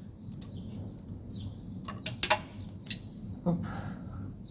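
A few sharp metallic clinks and knocks from hands and tools working on the fixings and cable terminals of a starter motor under a vehicle. The loudest clink comes a little after two seconds in.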